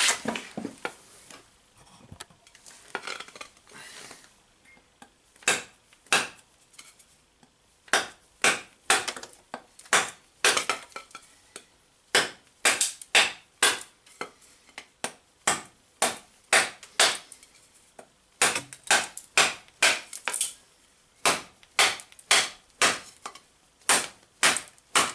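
Glock 78 field knife's spring-steel blade chopping into a stick of very hard, dried-out wood: a long run of sharp strikes, sparse and uneven for the first several seconds, then steady at about two a second.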